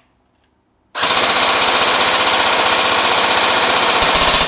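Tokyo Marui FA-MAS 5.56-F1 electric airsoft gun (AEG) firing one long full-auto burst, starting about a second in and lasting about three and a half seconds: the gearbox cycling at a fairly fast rate with a distinctive mechanism sound.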